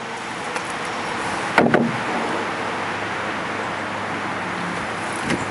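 Steady rush of wind and water, broken by a cluster of sharp knocks about a second and a half in and a lighter knock near the end, as the wooden paddle strikes the canoe's gunwale during the stroke.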